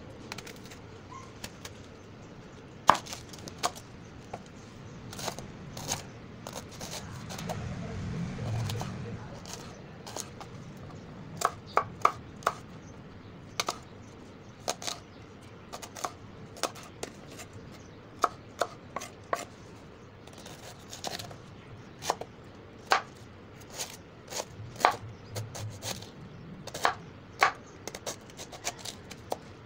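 A large kitchen knife slicing a head of cabbage on a cutting board: irregular sharp knocks of the blade meeting the board, often one or two a second and sometimes in quick pairs.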